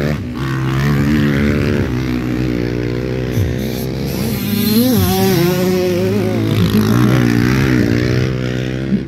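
Two motocross dirt bikes riding past, engines revving and easing off, their pitch rising and falling with each throttle change and overlapping.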